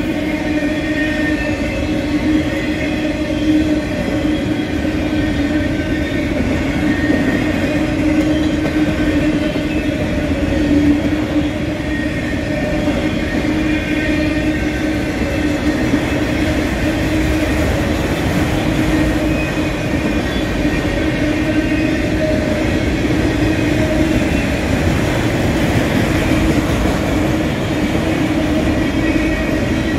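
Freight train of enclosed autorack cars rolling past close by: a steady rumble of steel wheels on rail with a constant hum and fainter higher whining tones from the wheels.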